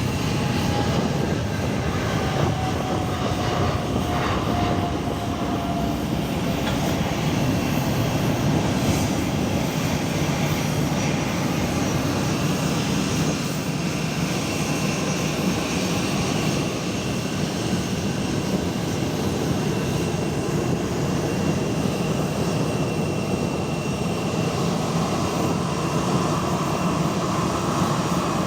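Airliner engines running with a steady, unbroken roar. A thin tone slides slowly down over the first several seconds.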